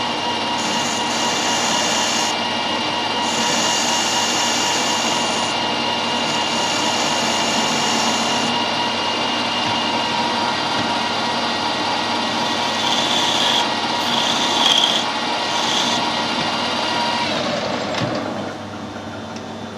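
Metal lathe running with the tool cutting a small stress-relieving radius on the edge of a high tensile steel stud. Under the steady motor whine, a high cutting hiss comes and goes. The whine stops near the end.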